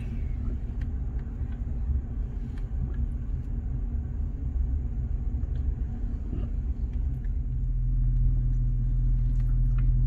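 Car driving slowly on a paved road, heard from inside the cabin: a steady low rumble of engine and tyres, with a low hum that grows a little louder in the last few seconds.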